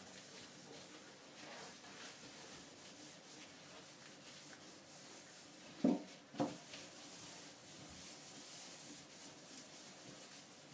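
A sponge rubbing faintly over a stainless-steel sink basin, spreading neat bleach, with two brief louder sounds close together about six seconds in.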